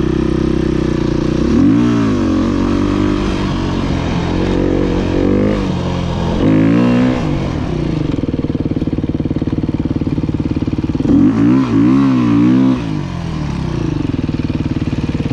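Dirt bike engine being ridden over rough ground, its revs rising and falling in several surges as the throttle is worked. The hardest burst comes about eleven seconds in, and the engine runs steadier near the end.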